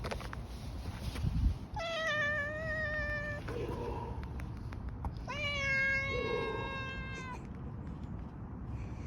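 A cat gives two long, drawn-out meows, each held level for a second and a half to two seconds, the second slightly lower. This is the odd voice a cat makes while being tapped on the lower back near the base of the tail. A dull thump comes just before the first cry.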